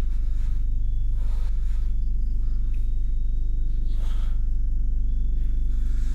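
Steady low drone of a suspense film score, held without change.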